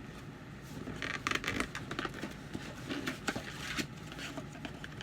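Cardboard box being opened by hand: a run of scraping, crackling and sharp clicks starting about a second in.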